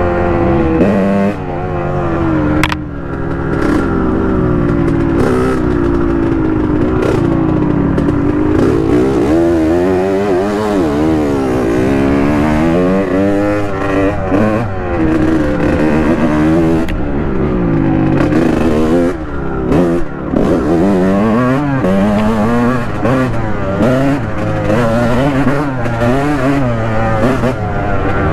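Honda dirt bike engine riding a trail, its pitch climbing and falling over and over as the throttle is worked and the gears change. A single sharp knock comes about three seconds in.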